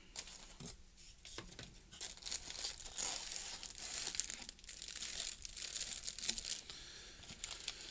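Clear plastic packaging crinkling and rustling in the hands as items are lifted out of a cardboard box, a busy run of small crackles.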